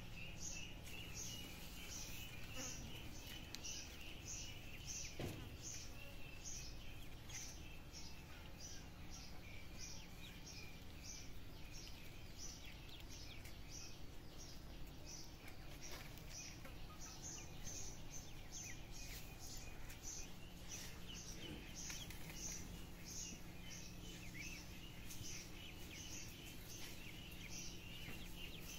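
Outdoor background with a high, regular chirp repeating about one and a half times a second, over fainter continuous chirping.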